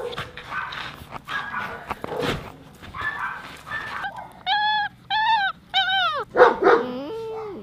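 Many dogs barking and yelping, then a dog whimpering: three high, arching whines in quick succession, a loud yelp, and a lower drawn-out whine near the end.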